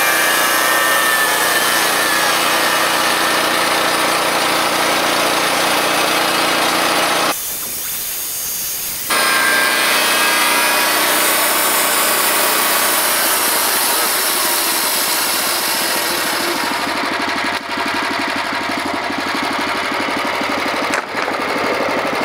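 Portable bandsaw mill cutting a cedar log: its gas engine runs steadily under the hiss of the band blade in the wood. Near the end the cutting hiss drops away and the engine keeps running, as the blade comes out of the log.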